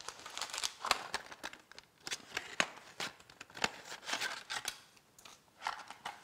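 Handling of packaging: a circuit board in a plastic bag and a cardboard box with paper inserts, giving irregular crinkling rustles and light clicks that thin out near the end.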